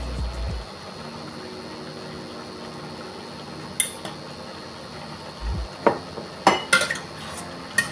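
A utensil clinking and knocking against a cooking pan and bowls: a single click, a dull thump, then a quick run of sharp clinks near the end, as seasoning goes into the food.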